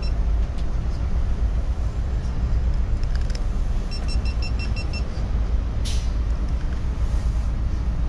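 Tour bus running along the road: a steady low engine and road rumble, heard from inside the bus. About halfway through comes a quick run of about six short high beeps, and a sharp click follows about a second later.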